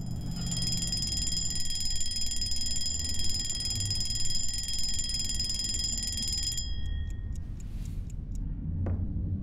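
A bell ringing steadily for about six seconds, then stopping, its lower tones dying away over the next second. A few sharp clicks follow near the end.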